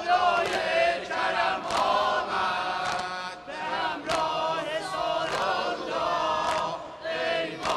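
Male voices chanting a Shia Muharram mourning lament (noha) together, with sharp slaps of chest-beating at uneven spacing, about one every second or so.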